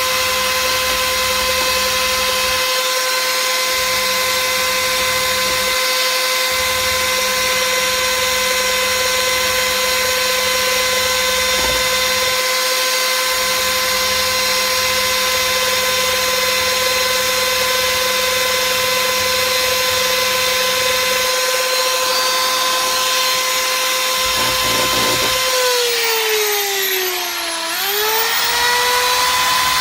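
Handheld electric drill running at a steady high speed with a constant whine. Near the end the motor slows, its pitch sliding down, then quickly speeds back up to full speed.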